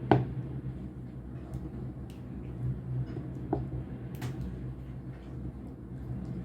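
A few light clicks and knocks from kitchen handling, the sharpest right at the start and two more about three and a half and four seconds in, over a steady low hum.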